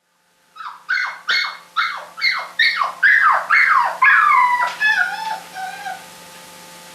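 Puppy crying: a quick run of high-pitched cries, each falling in pitch, about two to three a second, giving way about four seconds in to longer, wavering whines that fade out near the end.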